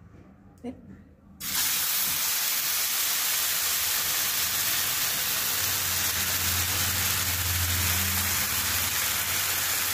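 Rice-flake dosa batter hitting a hot buttered pan: a sudden loud sizzle breaks out about a second and a half in and carries on as a steady hiss.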